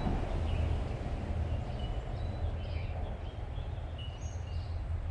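Steady low rumble of distant road traffic, with short high bird chirps scattered through it.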